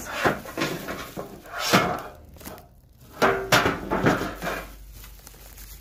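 Gloved hands handling a decorated metal tin and loose papers: a run of knocks, scrapes and rustles, with a busier stretch after about three seconds.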